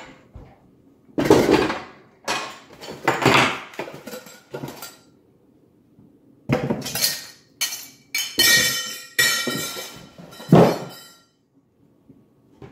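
Metal parts of a vertical hand-crank sausage stuffer (its stainless canister, stuffing tube and crank handle) being lifted out of a styrofoam box and set down on a wooden table: a series of separate clanks and knocks, one of them a ringing metallic clink about two-thirds of the way through.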